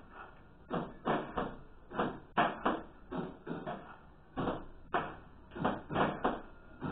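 A child's hand claps, about two a second and irregularly spaced, each with a short echo.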